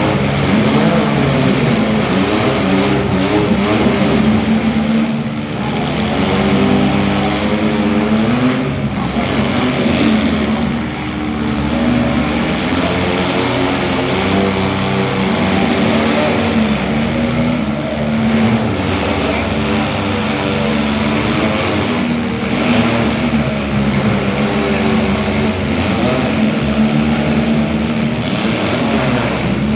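Demolition derby cars' engines running and revving together. Their pitch rises and falls continuously as the cars accelerate and back off.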